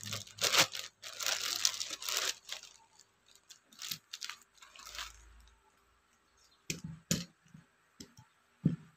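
Clear plastic packaging bag crinkling and rustling as a metal spray gun is pulled out of it, followed by a few light knocks near the end as the gun is handled and set down on a cloth-covered surface.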